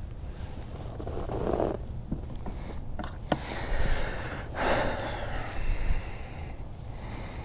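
Several short, close puffs of breath and handling noise while a largemouth bass is held by the lip and unhooked with pliers, with a sharp click a little over three seconds in.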